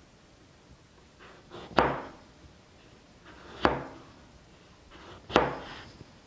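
Kitchen knife cutting through burdock root three times, about two seconds apart, each cut ending in a sharp knock as the blade hits the cutting board.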